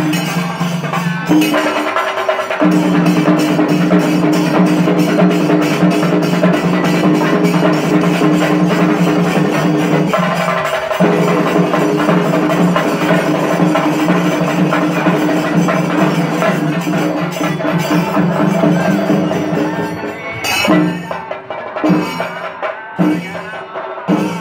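Chenda melam: chenda drums beaten in a fast, dense roll with cymbals, over steady held notes at a few fixed pitches. The held notes drop out briefly twice, and near the end they stop and the drums go on in separate, spaced strokes.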